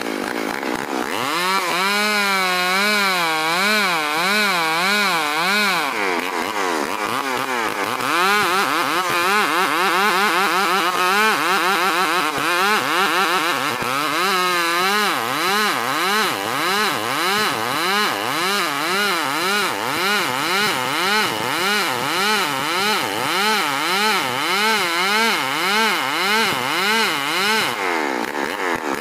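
STIHL 070 two-stroke chainsaw ripping a dense ulin (Borneo ironwood) log lengthwise. It revs up about a second in, then runs under heavy load with its engine pitch rising and falling in a steady wobble, about once or twice a second, the wobble growing quicker later on.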